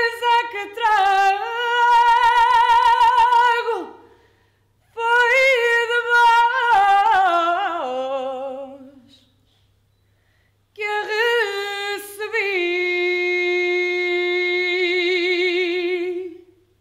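A woman singing solo and unaccompanied, slow phrases of long notes with wide vibrato. The second phrase steps down in pitch, and the last ends on a long held note.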